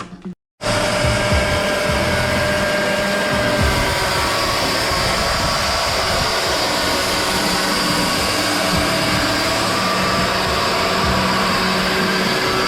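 Woodworking machinery running steadily: a dense, even machine noise with a few faint steady whining tones. It cuts in abruptly after a brief silent gap about half a second in.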